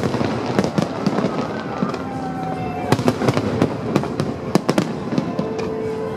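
Aerial fireworks bursting in quick succession: many sharp bangs over a continuous dense crackle.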